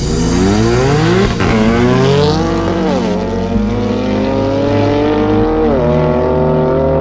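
Tuned BMW M3 F80's twin-turbo inline-six accelerating hard away, its exhaust note climbing in pitch through the gears with quick upshifts about one, three and six seconds in, and growing duller as the car pulls away.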